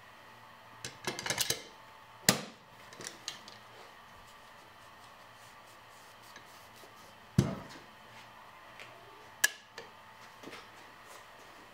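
Compact trim router being handled and its base fitted, making sharp metal clicks and knocks: a quick run of small clicks about a second in, then a few single loud knocks spread out, with lighter ticks between.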